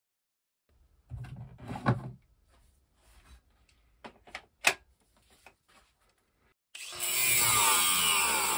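A few short knocks and clicks, then about seven seconds in an angle grinder cuts into metal bar: a loud, steady grinding rush whose pitch wavers as the disc bites.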